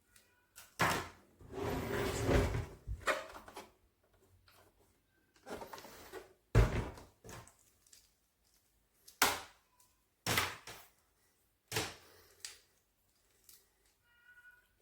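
A series of separate knocks and clacks from objects being handled and set down, with a scraping, rustling stretch about a second in.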